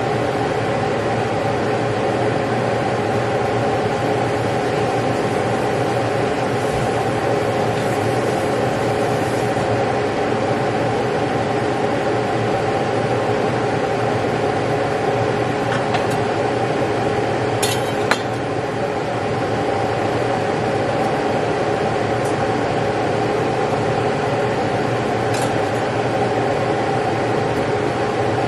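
Steady mechanical hum of a fan-like machine with a few fixed tones in it, and a few light clinks of kitchenware about halfway through and again later.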